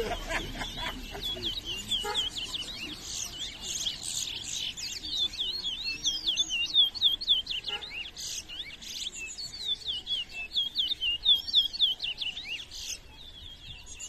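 Caged towa-towa (chestnut-bellied seed finch) singing a fast, high song of short sweeping chirps in quick succession, louder around the middle and thinning out near the end.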